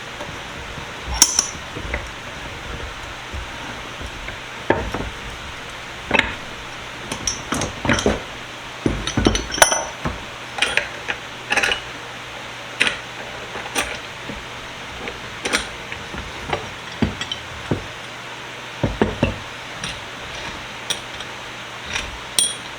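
Irregular metallic clanks and clinks as a Columbian bench vise is taken apart, with parts and tools knocked together and set down, over a steady background hiss.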